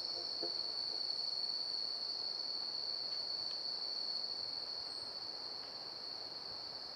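Crickets trilling steadily in a night ambience, one high unbroken tone that fades slightly toward the end.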